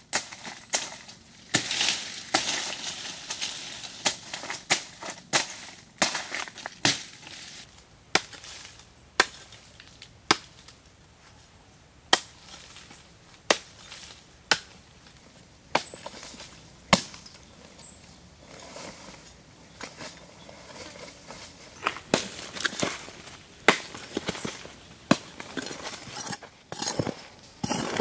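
Long-handled hoe chopping into hard, dry earth: a run of sharp strikes, often about a second apart, with soil crumbling and scraping between them.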